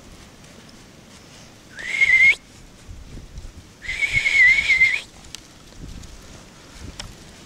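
A person whistling two notes. The first is short and slides up into a steady high pitch. The second, about two seconds later, is longer and wavers slightly.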